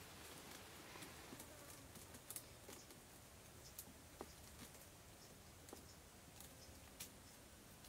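Hands tying and adjusting the thin strips of a woven stick cage frame: faint, scattered small clicks and rustles over near silence, with sharper clicks about two and a half seconds in and about seven seconds in.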